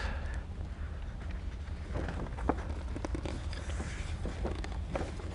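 A few faint taps and rustles from photographs being handled, over a steady low hum.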